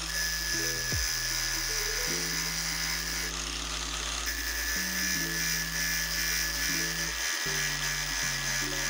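Background music with a steady bass line over a small angle grinder running at speed, its abrasive disc grinding the steel edge of a small axe to take out deep pitting. The grinder's thin whine fades for about a second a little after three seconds in.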